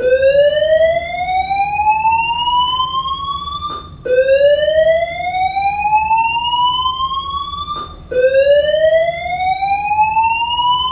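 School fire alarm voice-evacuation system sounding its whoop tone: a rising sweep about four seconds long, heard three times in a row.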